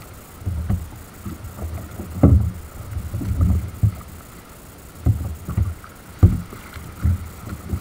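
Rough ocean swell slapping and splashing against a fishing kayak's hull in irregular thuds about a second apart, the loudest about two seconds in and again about six seconds in.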